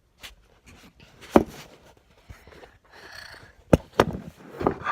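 Clear slime with a few beads in it being stretched and squeezed by hand, giving a few sharp, short pops with soft squishing between them.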